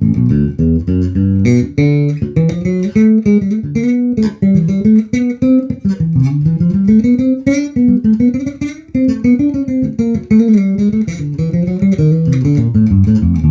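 Carvin Icon 5 five-string electric bass played fingerstyle through a bass amp on its front (neck) single-coil pickup with the active preamp: a busy line of quick plucked notes with a few slides up and down in pitch.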